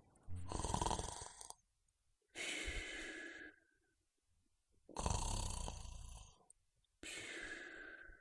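Snoring: two slow in-and-out breath cycles, each out-breath trailing off in a short whistle.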